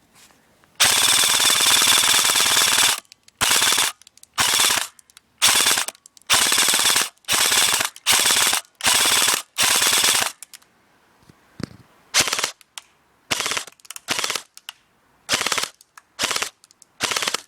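G&G Raider 15 XL blowback airsoft electric gun firing on full auto with an upgraded motor, rated at about 19.6 BBs a second. One long burst of about two seconds, then a string of short bursts that get shorter and more spaced out toward the end.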